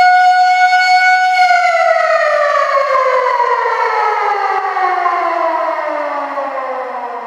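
A siren holds one steady high wail, then from about a second and a half in winds down, its pitch falling steadily and its sound fading.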